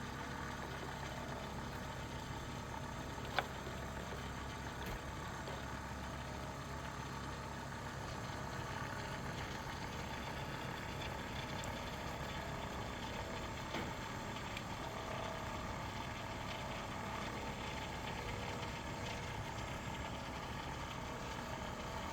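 Small axial flux alternator kit running steadily as a brushless motor, its magnet rotor spinning with an even hum. A single sharp click about three seconds in.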